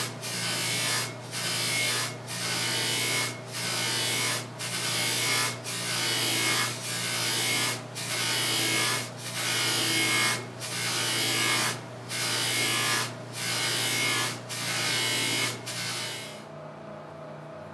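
Copper vase body ground on a motor-driven sanding belt: a rasping pass about once a second over the steady hum of the motor. The grinding stops near the end, leaving a quieter steady hum.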